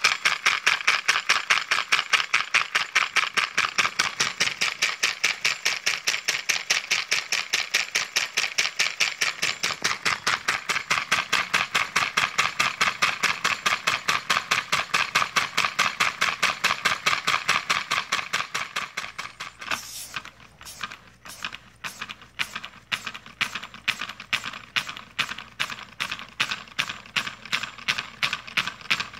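Homemade compressed-air reciprocating engine with a brass cylinder and valve running: a rapid, even beat of air puffs and clatter, several a second. About two-thirds through the beat softens and slows, then picks up again.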